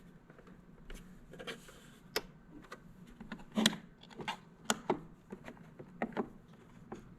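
Irregular light clicks, taps and rubbing from hands handling equipment, with a couple of sharper knocks around the middle.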